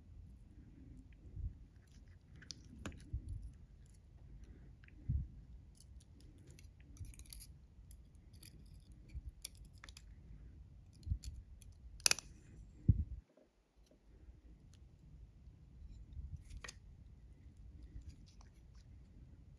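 Metal surgical instruments clicking during suturing: a needle holder and tissue forceps handled against each other, and suture scissors snipping the thread. Scattered small clicks, the sharpest two about a second apart a little past the middle.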